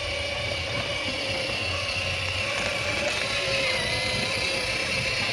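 Electric ride-on toy car's battery motors and plastic gearbox whining steadily as it drives, the pitch wavering slightly with speed.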